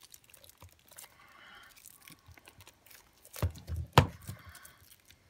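Two shrink-wrapped plastic Blu-ray cases sliding out of a cardboard slipcover, with faint rustling of cardboard and plastic wrap. Two sharp knocks come near the end, the second one loud, as the cases are handled.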